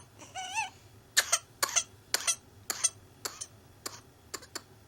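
A child's paroxysmal whooping-cough (pertussis) coughing fit: a rapid run of about a dozen short, sharp coughs that grow weaker and further apart toward the end. A brief wavering high-pitched vocal sound comes about half a second in.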